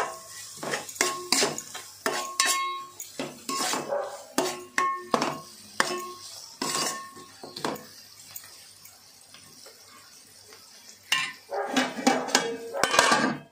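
Steel ladle knocking and scraping against an aluminium pan while stirring onions, green chillies and ginger-garlic paste, the pan ringing briefly after many of the knocks. It goes quieter in the middle, and louder knocks come near the end.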